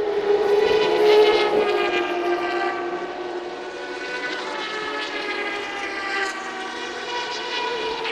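Turismo Carretera race car engines at high revs as the cars pass, the pitch dipping and climbing again with the gear changes. The sound cuts off suddenly at the end.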